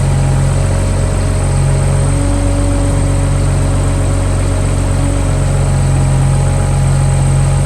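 Cummins diesel engine of a Volvo PF6170 asphalt paver running steadily. A steady mid-pitched tone joins about two seconds in and drops out about five and a half seconds in.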